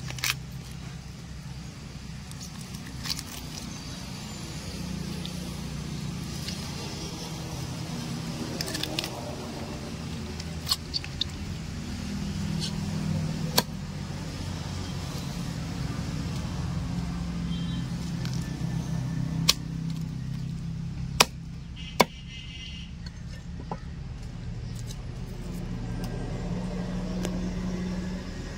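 Knife chopping through catla fish into steaks: a few sharp knocks spaced seconds apart, over a steady low background rumble.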